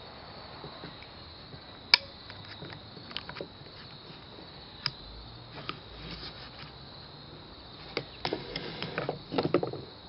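Parts of a KWA MP9 gas-blowback airsoft submachine gun clicking and rattling as its bolt and barrel assembly is worked loose and lifted out of the receiver: one sharp click about two seconds in, scattered small clicks, then a cluster of rattling clicks near the end.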